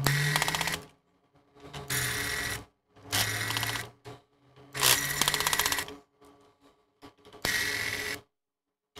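Electric screwdriver running in five short bursts, each under a second, backing screws out of a laptop case, with a steady whine and a fast ticking through each run.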